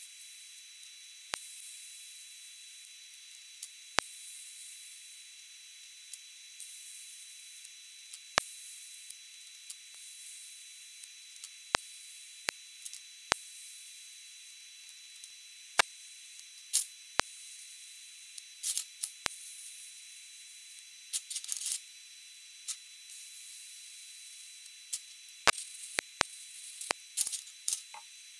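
TIG welding arc hissing steadily with a thin high whine, broken by scattered sharp clicks and short crackles, as a wastegate tube is welded onto a turbo exhaust manifold.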